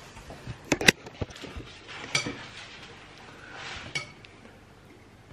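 Spoon and soup bowl clinking and knocking on a table: a few sharp knocks, the loudest just before one second in, and two short ringing clinks near two and four seconds.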